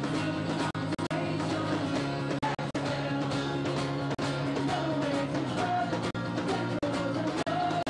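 Live acoustic rock: acoustic guitars strummed, with a man singing into a microphone. The sound cuts out for an instant several times.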